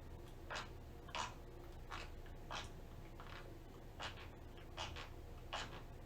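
Sleep bruxism: a sleeper's teeth grinding in short scraping strokes, about eight in a row at roughly one every three-quarters of a second, over a low steady hum.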